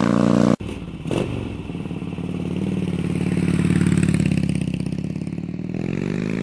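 2008 Harley-Davidson Dyna Fat Bob's Twin Cam 96 V-twin running through Vance & Hines aftermarket exhaust. The sound breaks off abruptly about half a second in, then the engine comes back quieter, swells to a peak around four seconds and eases off, with the pitch rising again near the end.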